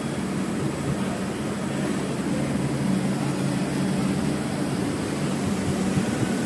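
BLIN BL-H40TC CNC lathe running: a steady low machine hum with an even hiss over it.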